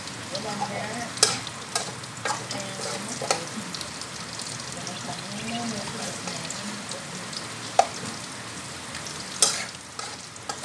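Diced Chinese sausage and fish balls sizzling in oil in a steel wok over high heat, stirred with a metal spatula that scrapes and clacks sharply against the pan several times.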